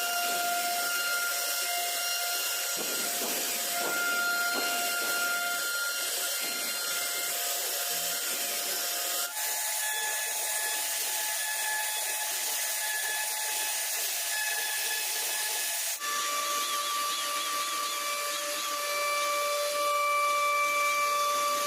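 CNC router spindle running with a steady high whine while the bit cuts wood with a continuous hissing noise. The whine's pitch shifts abruptly twice, about nine and sixteen seconds in.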